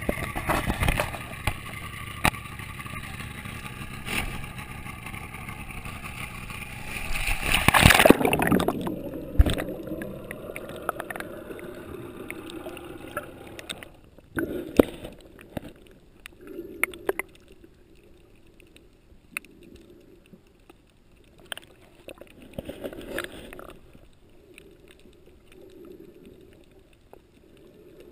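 Water splashing and churning at the surface around kicking swim fins, ending in a loud splash about eight seconds in as the camera goes under; after that, muffled underwater sound with soft gurgles and occasional ticks.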